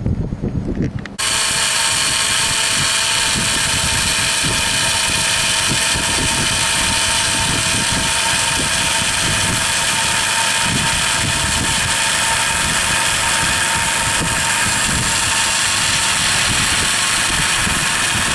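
Hand-held Dremel rotary tool with a small cutting bit running steadily at high speed, cutting a groove along a coastal agave stalk. Its high-pitched whine starts suddenly about a second in.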